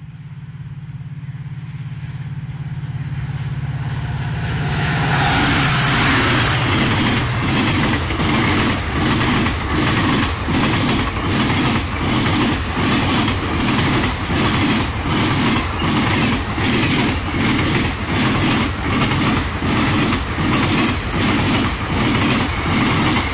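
Indian Railways express train approaching and passing close by at speed: a rising rumble over the first few seconds, then the steady run of passenger coaches with a regular clickety-clack of wheels on the rails, about one and a half beats a second.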